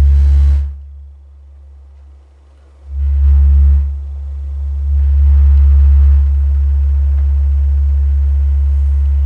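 Ultimate 12-inch active subwoofer, driven by its own repaired amplifier, playing a low sine test tone of about 70 Hz, with a faint buzz on the loudest parts. The tone is loud at first, drops back for about two seconds, comes up loud again about three seconds in and then holds steady. At the very end its pitch steps lower.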